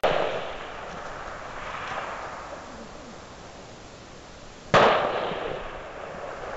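Two rifle shots about five seconds apart, each trailing a long rolling echo that dies away over a second or more.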